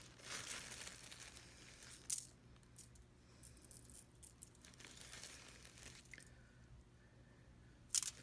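Crinkling of a plastic zip-top bag being handled while a pecan-and-sugar filling is sprinkled out of it by hand. The crinkling comes in short bursts, with a sharp, louder crinkle near the end.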